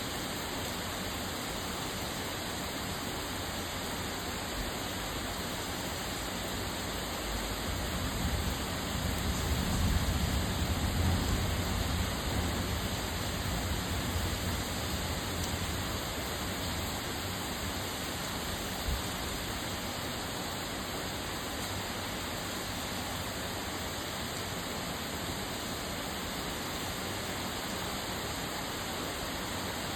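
Torrential rain pouring steadily, an even hiss of heavy rain and runoff. Partway through, a low rumble swells up and fades away again.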